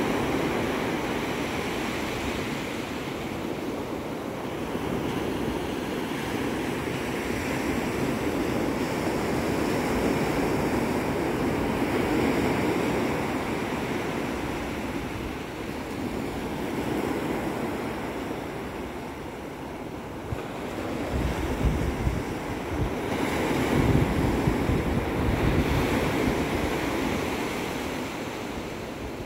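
Ocean surf breaking and washing up the sand, swelling and easing as each wave comes in. In the last several seconds, wind gusts buffet the microphone.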